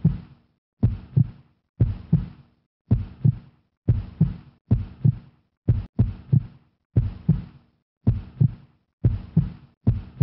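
Heartbeat sound effect: a low double thump, lub-dub, about once a second, each beat fading out into silence before the next.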